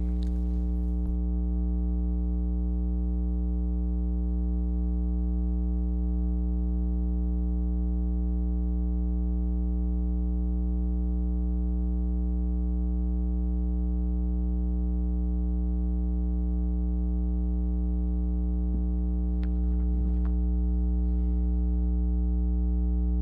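Steady electrical mains hum, a low buzz with a stack of overtones that does not change. A couple of faint knocks come near the end.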